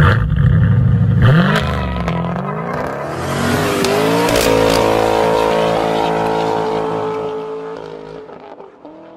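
Car engine revving: the revs climb in a few rising sweeps, then are held steady at high revs, and the sound fades away near the end.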